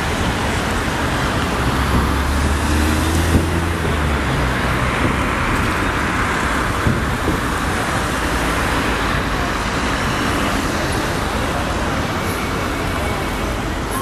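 Street traffic: cars driving past on a city road, with the low engine sound of a larger vehicle going by about two to four seconds in.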